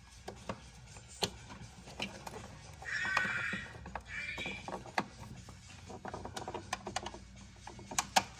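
Screwdriver working the terminal screws of an old electrical outlet: scattered small metal clicks and taps, with two short squeaky scrapes about three and four seconds in.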